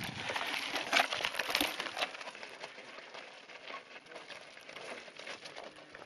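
Mountain bike tyres rolling over loose gravel and stones, a crunching with many small clicks and clinks of stones, louder in the first two seconds as a rider passes close, then fading.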